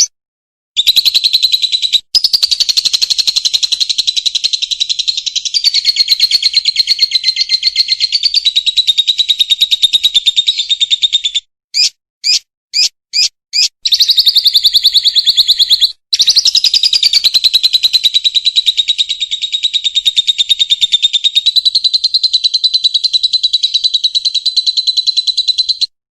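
Lovebird singing in long, very fast, unbroken high trills, the prolonged chattering song that bird-contest keepers prize. Between two long trills comes a run of about five short separate chirps.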